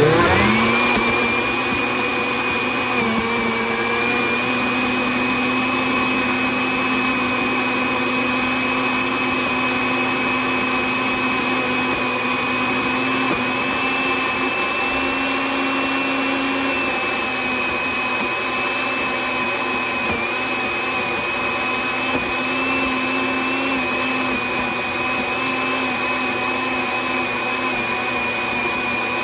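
Countertop blender motor running at high speed, pureeing frozen fruit with yogurt and honey. Its whine rises as the motor spins up at the very start, then holds steady.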